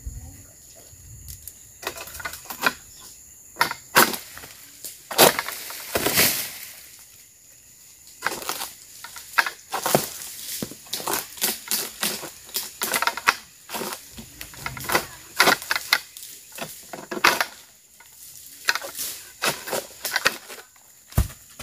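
Oil palm harvesting pole with a sickle on its end, chopping and scraping at a fruit bunch and frond bases high on the palm: irregular sharp strikes and scrapes, with rustling of palm fronds between them. A low thump near the end.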